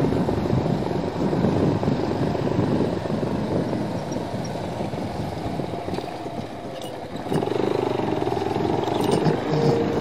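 Motorcycle engine running while riding, heard from the rider's own bike, with wind rumbling on the microphone. It gets louder and steadier about seven seconds in.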